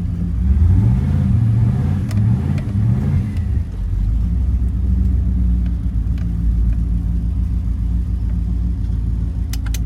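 Turbocharged Chevrolet small-block V8 revved in several quick blips, its pitch rising and falling during the first three or four seconds, then settling to a steady idle.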